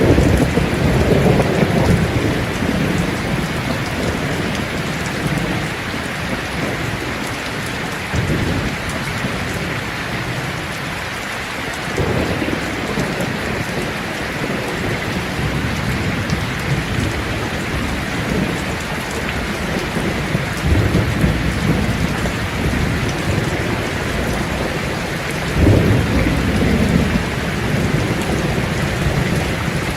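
Steady heavy rain hissing on surfaces, with distant thunder rolling in low rumbles several times; the strongest roll comes near the end.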